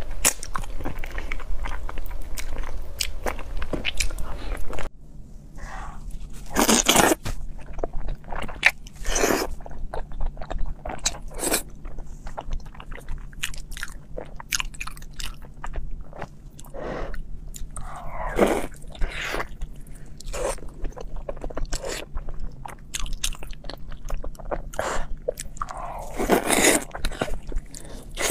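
Close-miked eating: chewing, lip-smacking and wet mouth clicks on spicy braised chicken feet, then, after a cut about five seconds in, on chewy sauce-glazed meat, with a few louder slurps.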